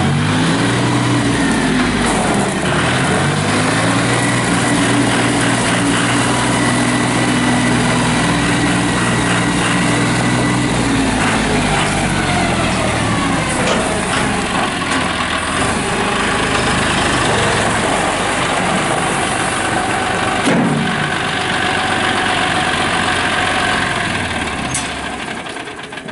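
2013 John Deere 5045D's turbo diesel engine running, its pitch rising and falling as the engine speed changes: it climbs, dips, holds steady for several seconds, then drops away about halfway through, with a higher whine carrying on.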